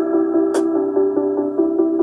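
Background electronic music: quick synthesizer notes over a steady pitched bed, with a light percussive tick about halfway through.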